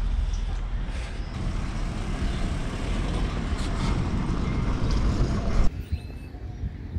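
Steady low rumble of outdoor urban background noise that cuts off abruptly near the end to a quieter background.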